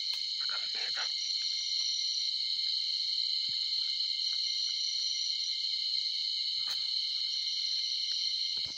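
Dense night chorus of insects, a steady shrill high-pitched trill that never lets up, with a few faint knocks about half a second in and again near the end.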